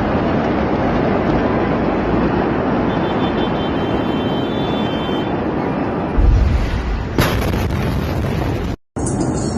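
Beirut port explosion heard in amateur recordings: continuous loud noise, then a heavy low boom about six seconds in and a sharp crack about a second later. The sound cuts out briefly near the end.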